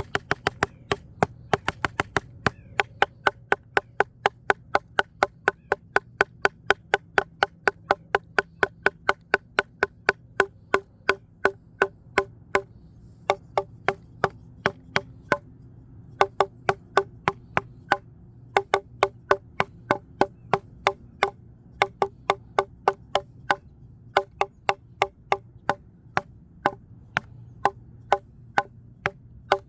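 A wooden branch struck over and over as a percussion instrument: sharp, dry wooden knocks at about three to four a second, thinning out for a few seconds midway, with a faint low hum underneath.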